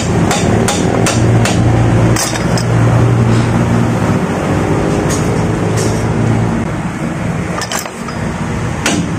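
Repeated sharp metal-on-metal hammer taps, two or three a second with a pause in the middle, knocking at the rear wheel hub and brake assembly of a Suzuki Multicab to free an obstructing part, over a steady low drone.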